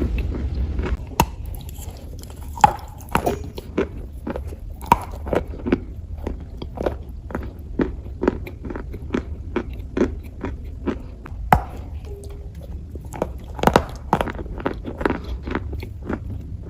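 Close-up crunching of dry clay being bitten and chewed: many short, sharp crackles in an irregular run over a steady low hum.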